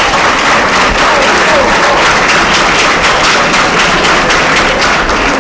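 A seated audience applauding steadily after a correct answer, with a few voices in the crowd. The clapping fades near the end.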